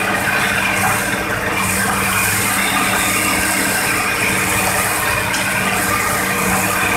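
Hitachi excavator's diesel engine and hydraulics running steadily as its boom and bucket work in the mud.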